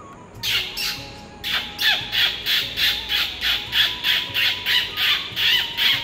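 A man imitating a parrot's squawks with his voice, hand cupped over his mouth: two harsh squawks, then after a short pause a fast, even run of about a dozen squawks, roughly three a second.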